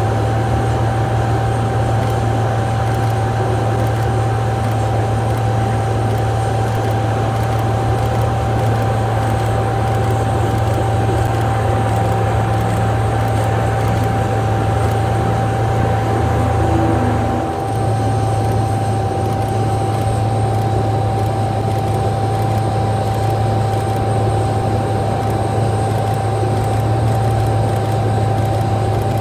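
Jet aircraft on an airport apron running steadily: a loud low drone with a constant high whine, dipping briefly about two-thirds of the way through.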